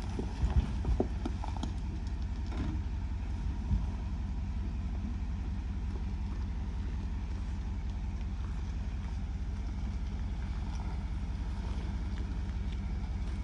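Vehicle engine running steadily at low speed on a rough dirt trail, with a few sharp knocks in the first four seconds.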